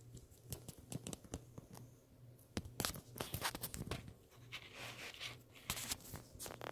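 Irregular clicks and crinkling rustles, coming in clusters, over a faint steady low hum.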